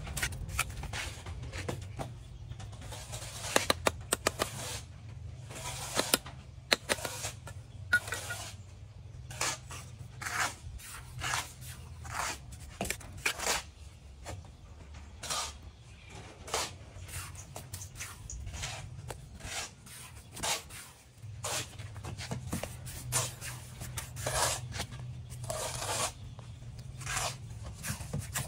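Steel bricklaying trowel scraping and slapping wet mortar: scooping it from a bucket, spreading it on hollow clay bricks and tapping the bricks into place, in irregular short scrapes and knocks. A steady low hum runs underneath, dropping away for a couple of seconds about twenty seconds in.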